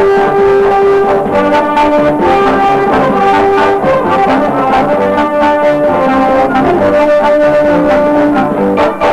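Background music led by brass: a melody of held notes, changing every second or so.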